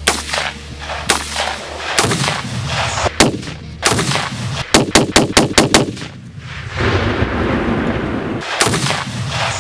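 AR-15 rifle gunfire: single shots about a second apart, then a fast string of about seven shots in about a second. In the last few seconds a steady rushing noise follows, with one more shot in it.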